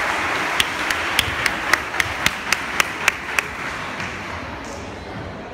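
Audience applause dying away, with one person's sharp claps cutting through in a quick, even run of about eleven, roughly three or four a second, ending about three and a half seconds in.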